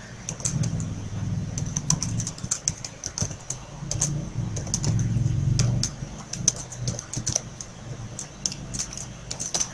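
Computer keyboard typing: quick, irregular key clicks as a line of code is typed. A low hum swells and fades underneath.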